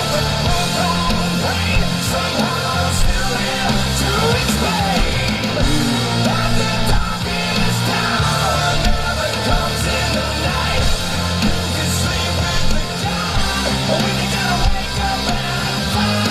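Heavy hard-rock song playing: distorted electric guitars and pounding drums, with a male voice singing over them.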